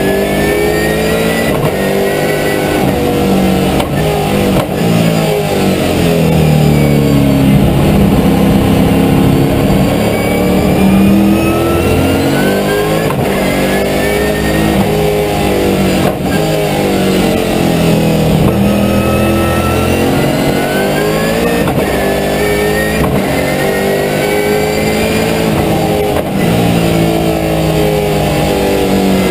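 Holden V8 Supercar's V8 engine heard from inside the cockpit, its revs repeatedly climbing and dropping back as the car accelerates, slows and changes gear around the lap.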